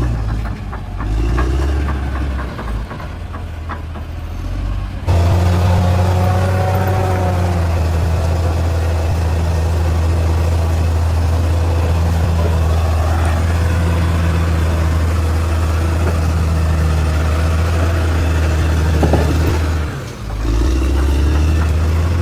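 Heavy earthmoving machinery's engine running with a steady low drone, with light clanking over the first few seconds. The sound changes abruptly about five seconds in and again near the end, where shots are cut together.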